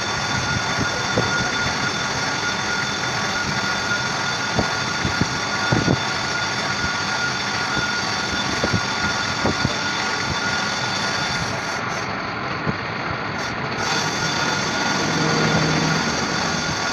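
A steady mechanical running noise, like an engine or machine, with a few light knocks in the first half.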